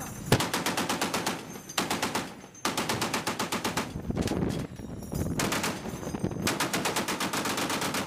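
Twin .50 caliber machine gun firing several bursts of rapid shots, with short pauses between bursts.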